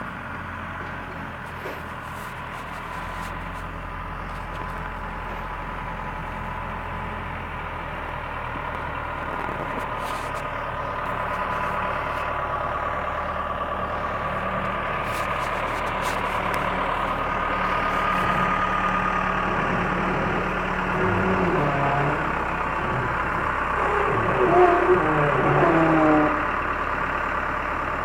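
Backhoe engine running steadily and slowly growing louder. A voice calls out briefly near the end.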